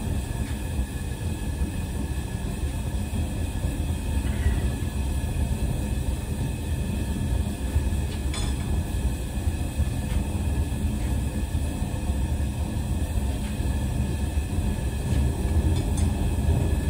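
Small homemade propane forge burner running, a steady low rumble of burning gas as the forge heats up for the blade's quench.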